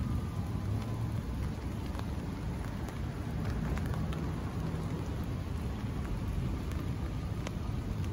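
Scattered raindrops tapping on an umbrella at the start of a rain shower, over a steady low rumble.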